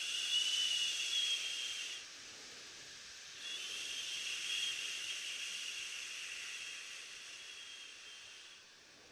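The liver sound of the Taoist Six Healing Sounds: a long hissing "shhh" exhaled through the teeth, made twice. The first lasts about two seconds; the second starts about three and a half seconds in and slowly fades.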